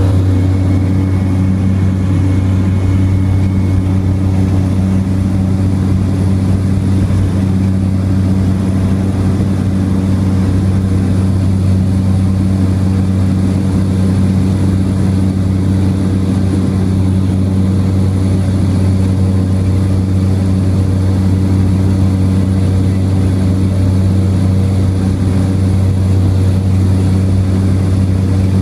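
Steady, unchanging drone of a propeller airliner's wing-mounted engine heard inside the cabin: a loud low hum with even overtones over rushing air noise.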